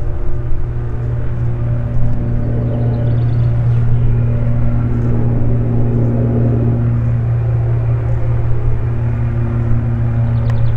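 Steady low drone of the Cessna Citation CJ3's twin Williams FJ44 turbofan engines running before the take-off roll, with a few faint steady tones above the drone.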